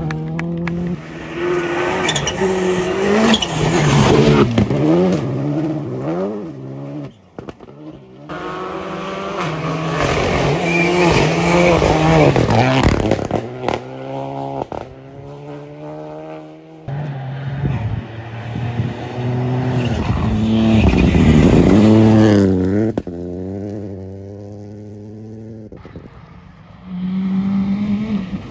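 Rally cars driven flat out on gravel stages, one pass after another: engines revving hard, rising and dropping in pitch through gear changes as each car goes by, with abrupt changes between passes.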